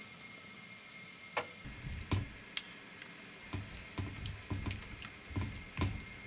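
Chopsticks stirring vegetables in a pan of simmering sauce: irregular clicks and soft knocks, a few a second, starting about a second and a half in.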